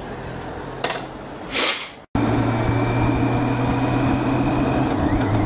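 Two short rustling noises about a second apart, then, after a sudden cut, the steady drone of a BMW K 1600 GTL's inline-six engine with wind noise while riding.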